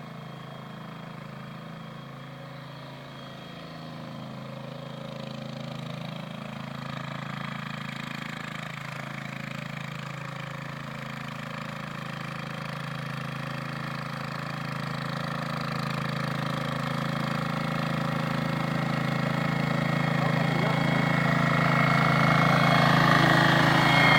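The 15 hp engine of an AHS 515D walk-behind tiller running at a steady pitch, growing steadily louder.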